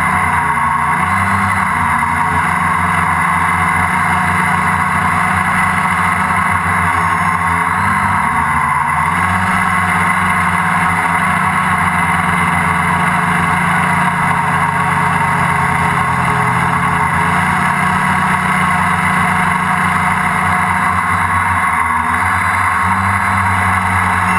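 Radio-controlled helicopter's motor and rotor running steadily, heard from the camera on board: a constant whine over a low rotor hum whose pitch sags briefly a few times, about a second in, around eight seconds, near seventeen seconds and near twenty-two seconds.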